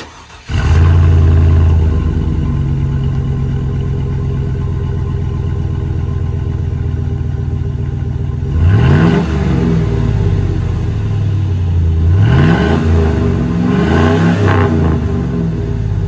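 V8 pickup engine through a Flowmaster Super 10 chambered muffler starting up about half a second in, with a brief loud flare before settling to a steady, deep idle. In the second half it is revved three times, each rev rising and falling in pitch. The catalytic converters are still in place.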